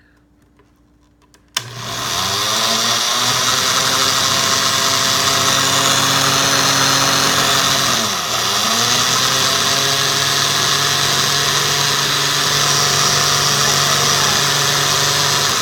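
Electric kitchen blender switched on about a second and a half in, its motor whine climbing as it spins up, then running steadily while blending a milkshake. About halfway it briefly slows and picks up speed again.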